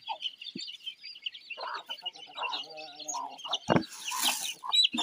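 Many chicks peeping constantly in high-pitched cheeps, while a hen clucks for a couple of seconds in the middle. A single sharp knock comes a little before the four-second mark.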